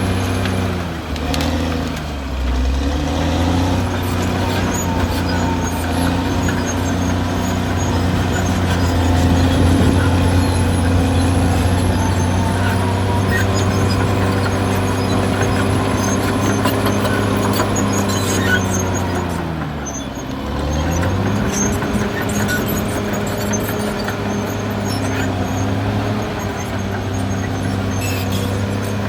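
Caterpillar D6R XL bulldozer's diesel engine running under working load, its pitch dropping and then climbing back about a second in and again about twenty seconds in. Faint high squeaks are scattered through it.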